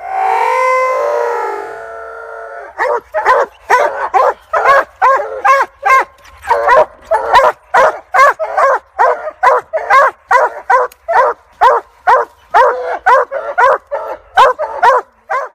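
Walker coonhound barking treed: one long drawn-out howl, then from about three seconds in a steady run of short chop barks, about two a second. This is the treeing bark, the hound's signal that it has a raccoon up the tree.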